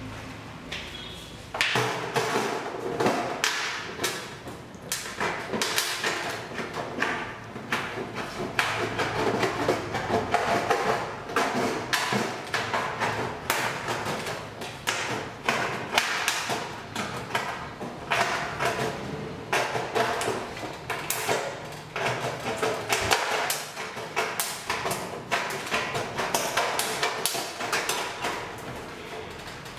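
Tin snips cutting a round hole in a corrugated metal roofing sheet: a fast, irregular run of sharp metallic crunches, starting about a second and a half in.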